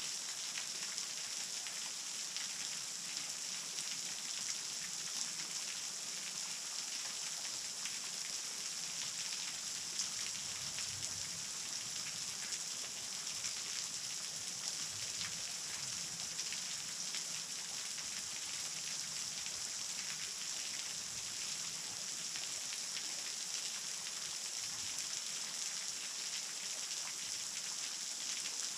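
Waterfall running at a light flow, its falling water splashing onto rock in a steady hiss of many small drops.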